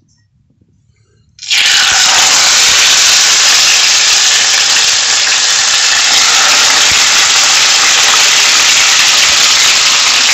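Masala-coated Indian mackerel frying in shallow hot oil in a pan, a loud, steady sizzle. It starts suddenly about a second and a half in, after a moment of near silence.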